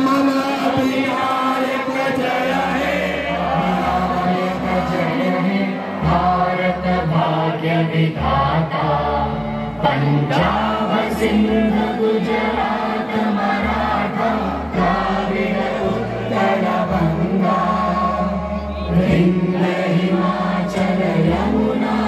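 Music: a group of voices singing together over instrumental backing with low bass notes.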